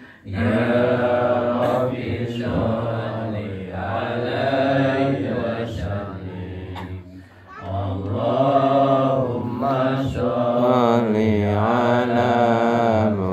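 Male voice chanting an Islamic devotional sholawat in long, wavering held notes, phrase after phrase, with a short break about seven seconds in.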